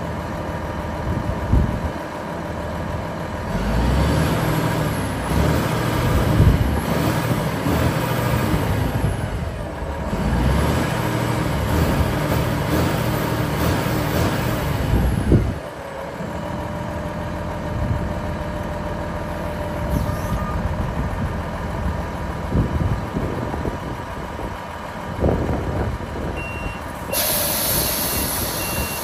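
A Kenworth W900 mixer truck's Cummins ISM 350 diesel running, at raised revs for about twelve seconds before dropping back to idle about halfway through. Near the end a sharp hiss of released air sounds and the truck's reversing beeper starts.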